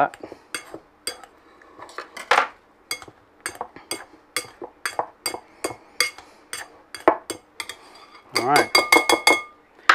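Wire potato masher clicking against the sides and bottom of a mixing bowl while mashing baked potato flesh, sharp clinks about two or three a second.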